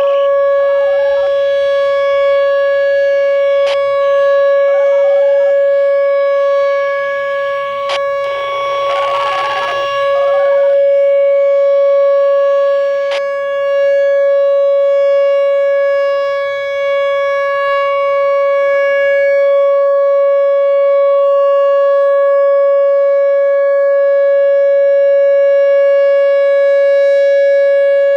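Whelen Vortex R-4 rotating electronic warning siren sounding its steady Alert signal: one held pitch with overtones, its loudness dipping and swelling slightly as the horn head turns.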